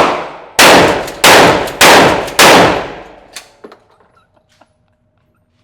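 Five gunshots fired in quick succession, about 0.6 seconds apart, each with a long ringing echo that dies away within a second or so. A few faint clicks follow.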